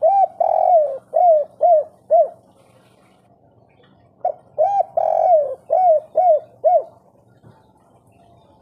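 Spotted dove (tekukur) cooing: two phrases about four seconds apart. Each phrase has a short note or two, one long swelling coo, then three quick closing coos, the 'kuk 3' ending of this type of tekukur.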